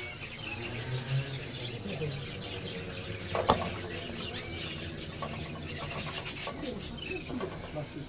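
Caged canaries giving short, scattered chirps, with one sharp click about halfway through.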